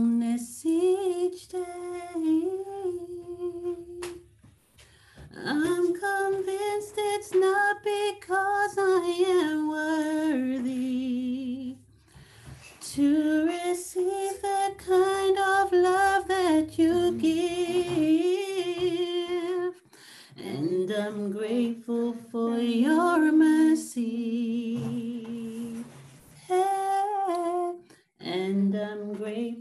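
A woman singing a slow worship song solo, in long phrases of held, wavering notes with short breaks for breath between them.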